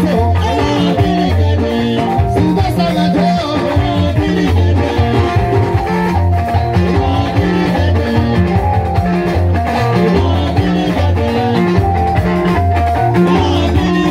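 Live band music: electric guitars and a drum kit over a steady, repeating bass line, playing an upbeat dance groove.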